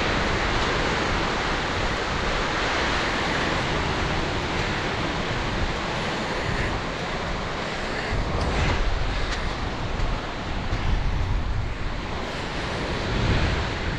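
Surf washing on the shore with wind buffeting the microphone: a steady rush of noise with a low rumble that swells in gusts.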